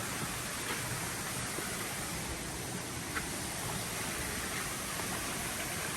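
Steady rush of flowing water, with a few faint clicks.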